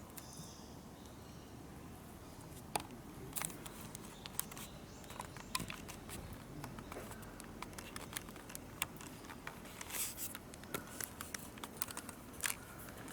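Faint, irregular light clicks and crackles, scattered and uneven, most clustered around ten seconds in.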